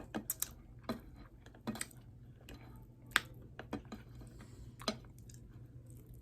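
Close-up eating sounds: a scattered series of soft clicks and smacks, about fifteen in all, the sharpest a little after three seconds and near five seconds.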